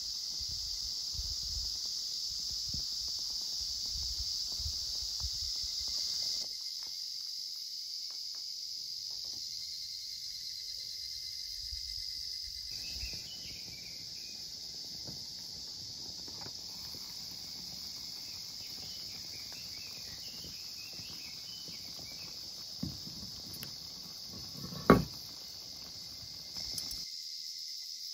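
Steady high-pitched drone of summer insects, with one sharp click a few seconds before the end.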